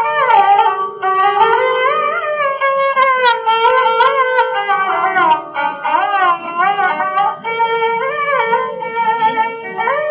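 Background music: an ornamented melody line with sliding notes over plucked strings.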